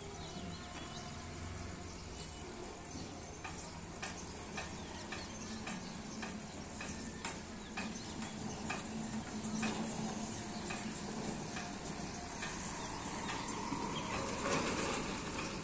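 Outdoor morning ambience: a steady hiss with many short clicks scattered through it and a faint low hum, getting slightly louder toward the end.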